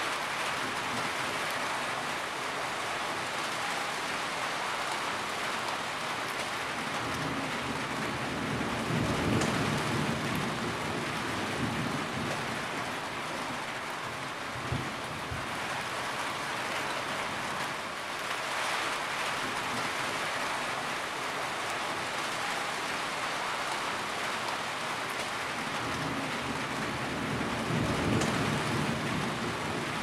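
Heavy rain pouring steadily onto a corrugated roof, a dense even hiss of drops. A low rumble swells up twice, about nine seconds in and again near the end.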